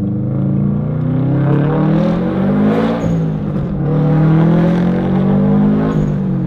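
Subaru WRX STi's turbocharged flat-four, breathing through a titanium cat-back exhaust, accelerating hard, heard from inside the cabin. The engine pitch climbs, drops at a gear change about three seconds in, then climbs again and drops at a second shift near the end.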